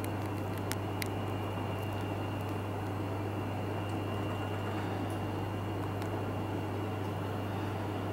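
Steady low electrical hum with hiss and a faint high steady whine, and a few faint ticks in the first second.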